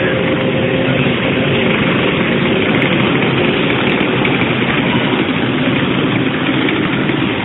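Motorcycle engines running steadily, a loud, even drone.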